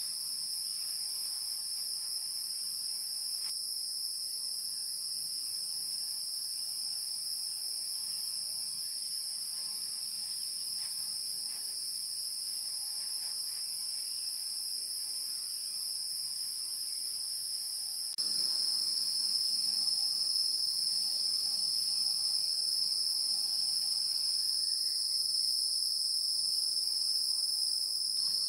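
A steady, high-pitched insect chorus that runs unbroken and steps up abruptly louder about eighteen seconds in.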